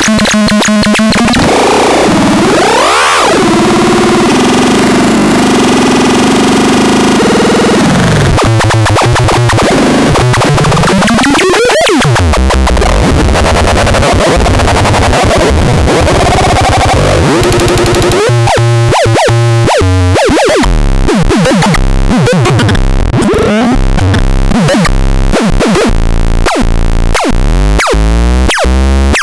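Harsh electronic synthesizer noise. Pitches sweep up and down, and past the middle it breaks into rapid stuttering pulses.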